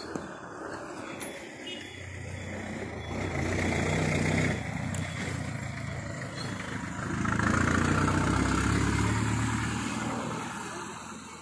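Heavy truck engines running close by, their low hum swelling twice: once about three to four seconds in, cutting off sharply, and again from about seven to ten seconds in.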